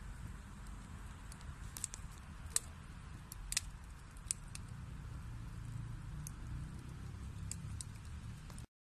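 Wood fire burning in a fireplace: a low steady rumble of the flames with scattered sharp pops and crackles of the burning wood, a few louder snaps about a third of the way in.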